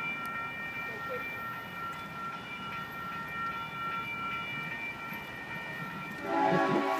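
A train horn held as one steady chord of several tones, warning the semi-trailer stuck on the crossing ahead. About six seconds in, a louder sound with many tones comes in over it.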